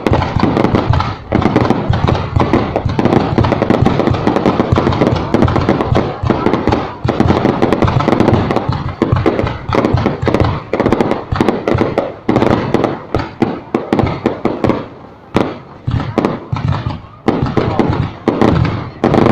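Fireworks display: a dense, nearly continuous run of rapid bangs and crackles. Near the end it thins for a few seconds into more separate bangs with short gaps.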